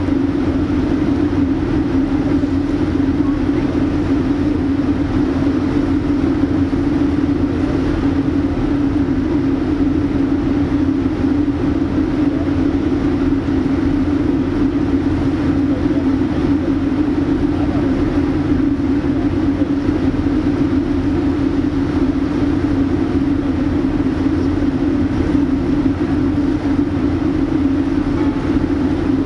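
Steady mechanical drone of ship's engines and machinery, a constant low hum over a rumble with no change in pitch or level.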